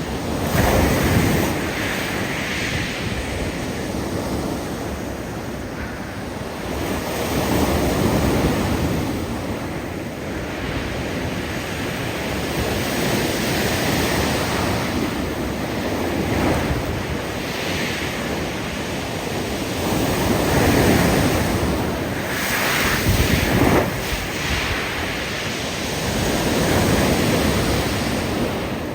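Big waves breaking on a steep bank of loose beach rocks, swelling every six or seven seconds. As each wave recedes, the rocks tumble in the backwash with a hiss.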